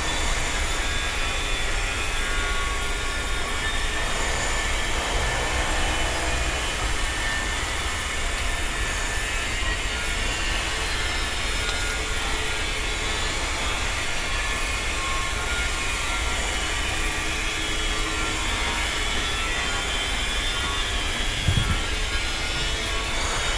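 Construction site ambience: a continuous rumble of heavy machinery mixed with clatter and faint whining tones, with one low thud about three quarters of the way through.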